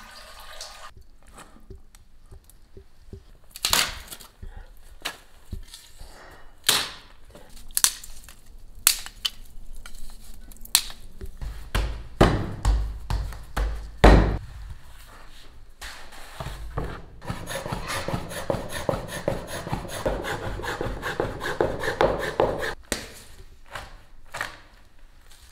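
Knocks and thuds of noodles being made by hand on a wooden board, with the low rumble of a wooden rolling pin rolling out dough about twelve seconds in. A longer busy stretch of rapid tapping and scraping follows in the second half.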